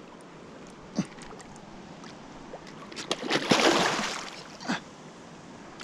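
Water splashing in a burst that lasts about a second and a half, starting about three seconds in, with a faint knock about a second in.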